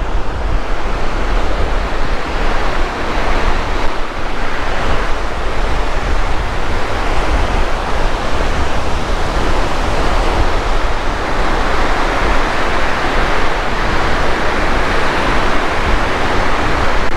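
Choppy, wind-driven lake waves breaking and washing onto a sandy beach, with strong wind buffeting the microphone in a steady low rumble.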